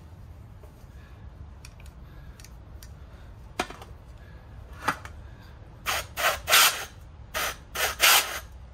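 Short hissing blasts of compressed air from an air blow gun pressed into a racing brake caliper's fluid port to force out stuck pistons, with air leaking out around the nozzle tip. Two single blasts, then a quick series of about six near the end.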